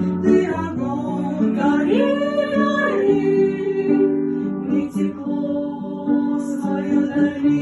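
Music of a song's closing bars, led by an acoustic guitar, with a voice holding a sung note that rises and falls around two seconds in.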